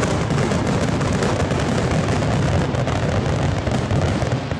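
Fireworks display with many shells bursting at once: a dense, unbroken run of overlapping bangs and crackling pops.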